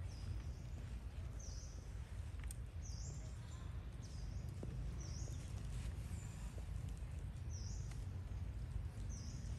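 Outdoor background noise with a steady low rumble, and a bird's short high chirp repeating about every one and a half seconds.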